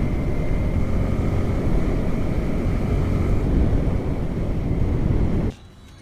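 Yamaha R15M's single-cylinder engine running under way, with road and wind rush, steady in level; it cuts off suddenly near the end.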